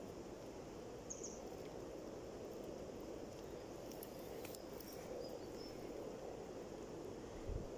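Breeding chorus of many common frogs (Rana temporaria) at a spawning pond: a steady, dense mass of low croaking calls. A brief high chirp comes about a second in, and a low thump near the end.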